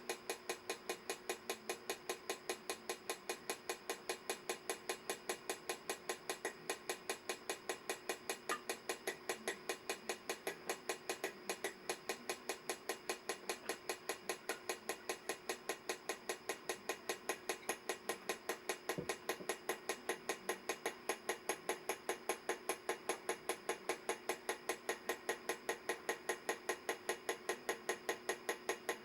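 Bulova ladies' mechanical wristwatch ticking in a fast, perfectly even rhythm, running after a complete overhaul.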